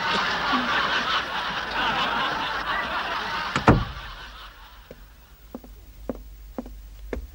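Studio audience laughing, dying away over about four seconds. A single sharp knock comes near the end of the laugh, followed by a few faint clicks.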